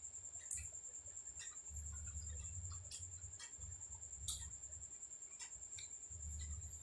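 Close-miked eating: wet mouth clicks and smacks at irregular intervals over low, muffled chewing, with a steady high-pitched whine behind.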